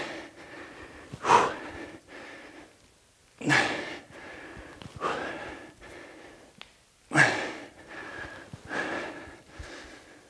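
A man breathing hard through the mouth while doing dumbbell squat-to-press reps: about six forceful breaths, one every second and a half to two seconds, the strain of each repetition.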